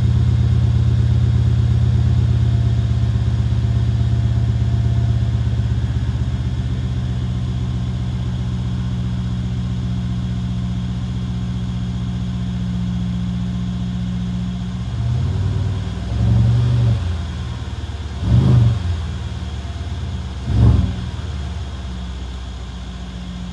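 Mercedes-Benz CLS550's M278 4.7-litre twin-turbo V8, straight-piped by a muffler delete, idling deep and loud after a cold start, the note slowly quieting. About two thirds of the way in the throttle is blipped four times, the last two short, sharp revs about two seconds apart, before it settles back to idle.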